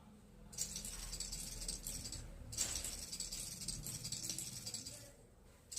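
A high-pitched rattling in two bursts of about two seconds each.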